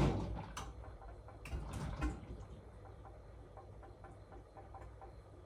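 Washing machine going quiet: a loud noise fades away within the first second, leaving a steady low hum with a few sharp clicks and faint ticks.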